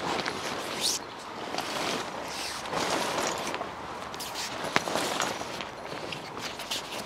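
Rustling and flapping of a carp-fishing bivvy's fabric skin as it is hauled and spread over its frame, with a single sharp click a little before five seconds in.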